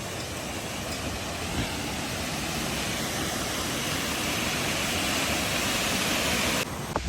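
Steady rushing of a waterfall, slowly growing louder and then cutting off abruptly near the end.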